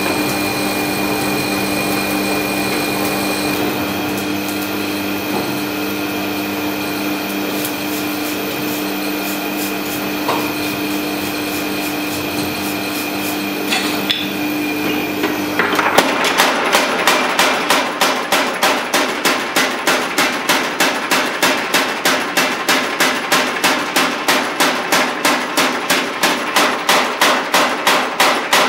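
A forge's burner and blower running with a steady hum; about sixteen seconds in, a power hammer starts pounding a hot damascus steel billet on its die at about four even blows a second.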